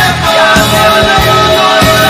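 Loud rock background music with a steady drum beat.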